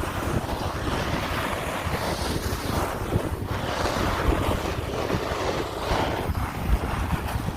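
Wind buffeting the microphone: a steady rushing noise with uneven low rumbling gusts.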